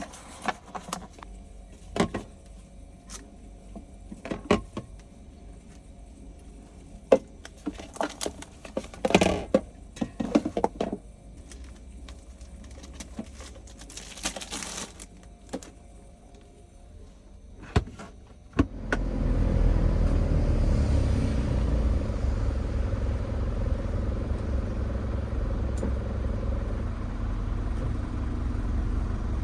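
Scattered clicks and knocks of things being handled, then, a little past the middle, the camper bus's engine comes in abruptly with a steady low rumble and keeps running.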